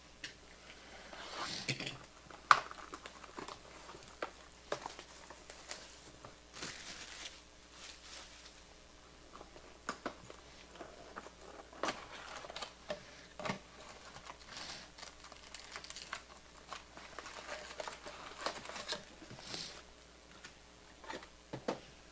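Plastic wrapping on a sealed trading-card hobby box crinkling and tearing as it is unwrapped and opened, with scattered sharp clicks and taps of handling; one click about two and a half seconds in is the loudest.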